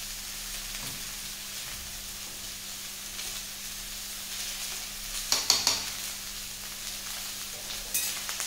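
Cauliflower, potato and a masala paste frying in mustard oil in black iron kadhais, a steady sizzle. A spatula stirs and scrapes in the masala pan, with a few louder scrapes and clinks about five and a half seconds in and again near the end.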